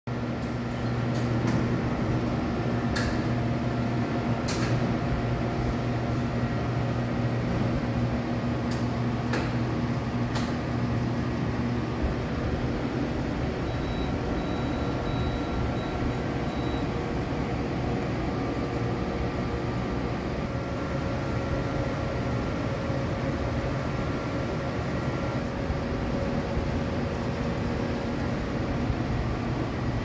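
Steady electrical hum and fan noise from a running variable frequency drive and its control panel, with a low pitched hum that weakens about twelve seconds in. A few sharp clicks come in the first ten seconds.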